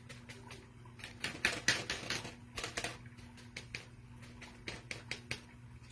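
Chippy bristle brush dabbing wet Mod Podge onto a napkin and muslin laid on a wire rack in a foil tray: a quick, irregular run of light taps and clicks.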